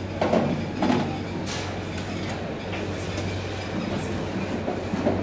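Security-checkpoint baggage conveyor running with a steady hum, with a few clattering knocks in the first second and a half as trays of bags move along it.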